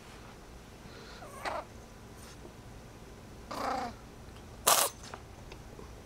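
A ginger kitten sneezes once, sharply, about four and a half seconds in; this is the loudest sound. Two shorter, softer pitched sounds come before it, one about a second and a half in and a longer one about three and a half seconds in.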